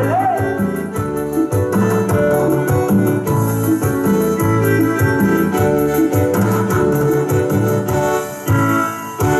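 Dance music with an electronic keyboard playing sustained organ-like chords and melody over a pulsing bass line and steady fast percussion. The music dips briefly near the end.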